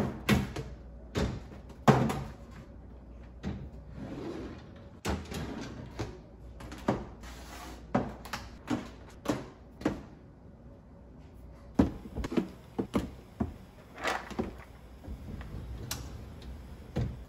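Plastic food storage containers knocking and clattering, irregularly, as they are set down one after another on wooden pull-out pantry shelves, with a shelf being handled and slid.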